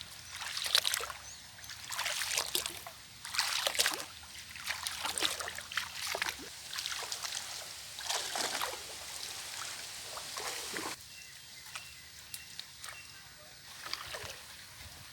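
Water splashing and sloshing in repeated irregular bursts, about one every second or so, easing off about eleven seconds in to a few faint drips and clicks.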